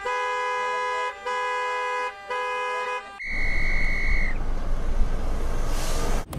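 A car horn sounds three long blasts of about a second each, followed by a loud rushing noise with a brief high tone at its start. The rushing noise cuts off suddenly near the end.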